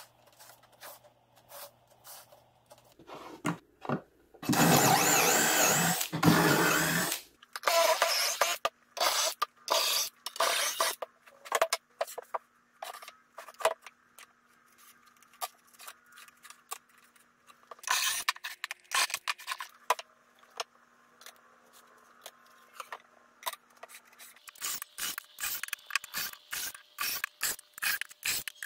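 Pine boards being handled on a workbench: wood scraping and sliding over the bench top, with many short knocks and clicks of boards and tools being set down. The loudest part is one scrape lasting about three seconds, about five seconds in.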